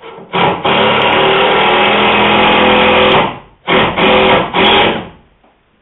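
Cordless drill-driver driving a wood screw into the rail to pull the joint tight. It runs in one steady three-second stretch, then stops briefly, then gives three short bursts as the screw seats.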